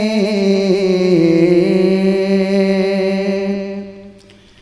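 A man's voice singing an Urdu naat, holding a long drawn-out note with a gently wavering pitch that dips slightly about a second in, then fading away near the end.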